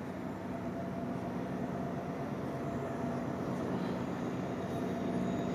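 GO Transit MP40 diesel-electric locomotive and its train arriving at the platform: a steady engine and rail drone that slowly gets louder.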